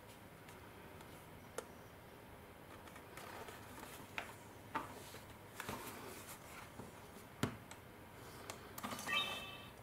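Scattered clicks and taps of a Canon PowerShot G12 compact camera body being handled, its flip-out screen swung open. Near the end comes a short electronic chime as the camera switches on.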